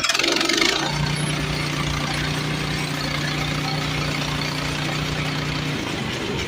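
Small gasoline engine of a portable bandsaw sawmill running steadily at idle. A short burst of noise comes in the first second, and the steady hum changes near the end.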